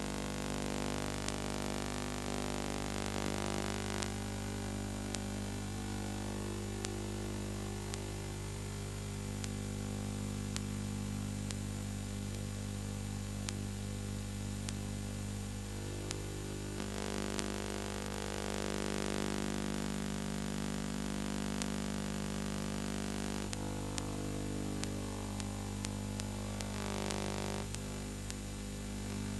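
Steady electrical hum with hiss and faint scattered clicks: noise on the track of a silent film transfer.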